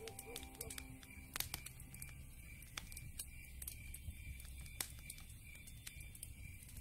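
Fire crackling: irregular snaps and pops over a low rumble, with a louder pop about a second and a half in and another near five seconds.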